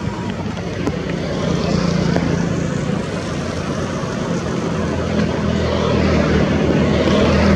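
Steady engine drone with a low hum, growing louder over the last few seconds.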